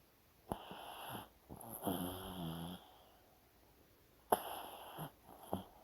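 A pet dog snoring in its sleep: a long snore of two drawn breaths soon after the start, the second with a low buzzing tone, then a shorter snore about four seconds in and a brief one near the end.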